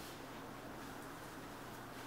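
Quiet room tone: a steady low hum under faint hiss, with no distinct handling knocks.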